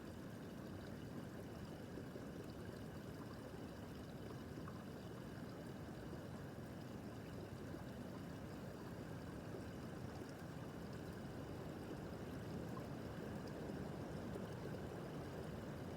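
Small brook babbling: a steady, low wash of running water over stones.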